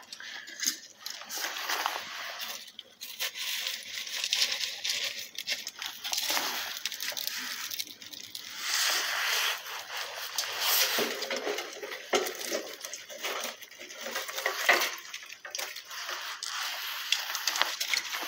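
Wood fire burning in a furnace firebox, rushing and crackling, with many sharp pops and a level that swells and falls.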